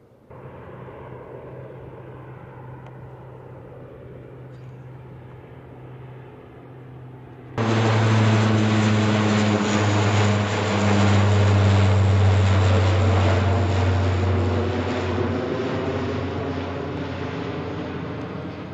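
C-130 Hercules four-engine turboprop flying over, a steady low propeller drone. It is distant at first, then jumps suddenly much louder about a third of the way in as the aircraft passes close overhead, and fades slowly near the end.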